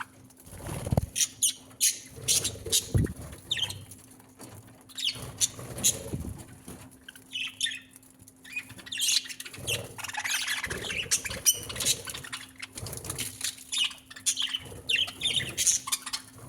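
Birds chirping and squawking in short calls, with wing flapping and many sharp taps and knocks scattered through.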